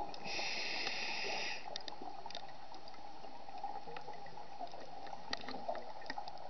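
Underwater sound of a scuba diver breathing through a regulator: a hissing breath about a second and a half long just after the start, then muffled bubbling of exhaled air. Scattered sharp clicks throughout.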